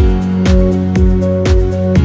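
Background music with a steady beat of about two beats a second over held notes.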